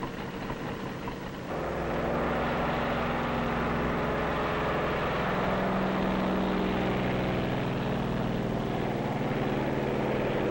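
Propeller aircraft engines running on a carrier flight deck for takeoff, with a steady drone that gets louder about a second and a half in and holds several engine pitches that shift as it goes.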